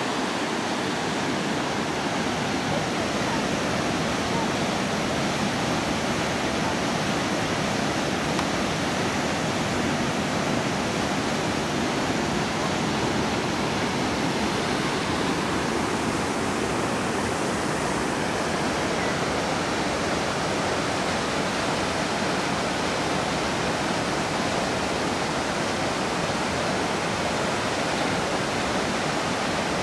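Rushing white water from river rapids and a waterfall, a steady, even rush that does not change.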